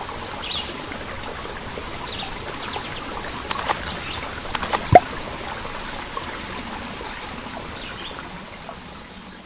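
Nature ambience sound effect: a trickling stream with scattered bird chirps, and a single sharp water plop about five seconds in, the loudest sound. The ambience fades away near the end.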